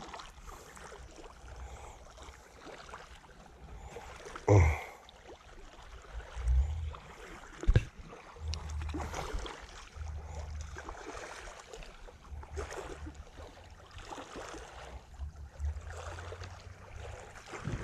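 Outdoor ambience of wind rumbling on the microphone over a faint hiss of running water, with a few short knocks.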